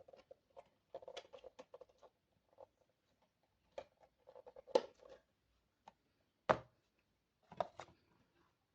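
Hands handling a boxed toy and its packaging: scattered rustles, taps and clicks, with a few sharper knocks about halfway through and near the end.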